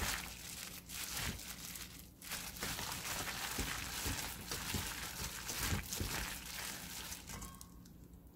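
Hand in a disposable plastic glove mixing chili-seasoned dried radish strips and pepper leaves in a stainless steel bowl: irregular crinkling of the glove and the sticky strips being squeezed and tossed, which dies away in the last second.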